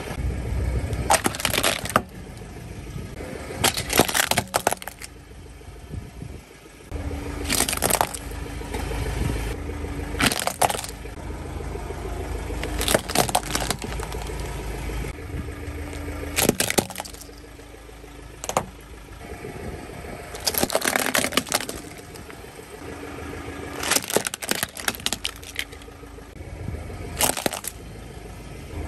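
Hard plastic toy vehicles cracking and snapping under a car tyre, a long run of sharp single cracks and pops a second or a few seconds apart, over the low rumble of the car's engine.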